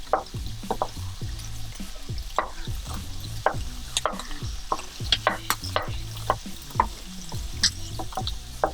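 Fried rice sizzling in a hot wok while a spatula stirs and tosses it, irregular scraping strokes over a steady sizzle.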